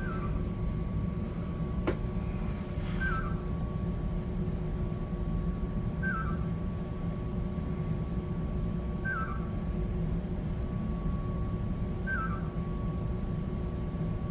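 Steady low electrical hum with a faint constant whine, and a short electronic double chirp repeating about every three seconds. There is a single click about two seconds in.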